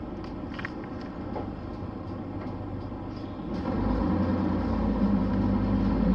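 Diesel engine of a Nissan Diesel city bus with a Fuji Heavy Industries 7E body, heard from inside the passenger cabin: a steady rumble that grows clearly louder and heavier a little past halfway as the engine takes up load. A few light clicks sound in the first second or so.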